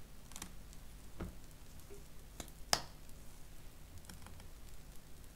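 A plastic squeeze bottle handled by gloved hands: a few soft clicks and knocks, with one sharper click about halfway through.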